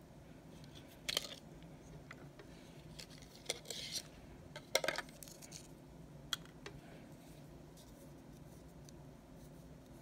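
Several light clicks and taps in the first two-thirds: brushes, their clear plastic tubes and a pair of long-nose pliers being picked up and set down on a tray.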